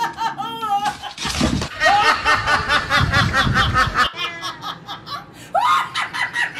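A woman laughing hard in rapid repeated bursts, a loud belly laugh.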